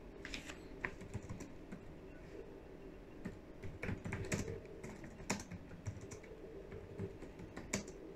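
Typing on a computer keyboard: irregular runs of key clicks with a few louder keystrokes about four, five and nearly eight seconds in.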